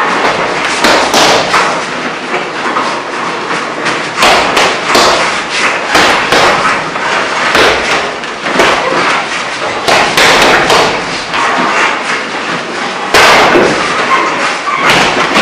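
Punches and kicks landing on a hanging heavy punching bag: a string of irregular thuds, sometimes several in quick succession.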